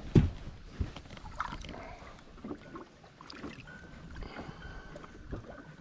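Water lapping and splashing lightly against a boat's side as a smallmouth bass is lowered into the lake by hand and released, with a sharp thump just after the start and a few small knocks.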